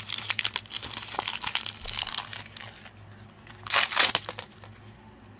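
Crinkling of a toy's plastic wrapper being handled and pulled open by hand, many quick crackles, with a louder rustle about four seconds in.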